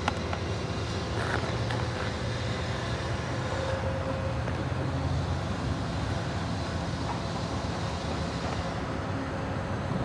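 Steady low rumble of distant vehicle traffic.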